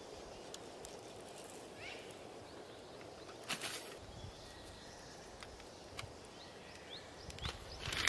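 Quiet outdoor background noise with a few faint, short bird chirps and scattered small clicks. About three and a half seconds in there is a brief hissing rustle.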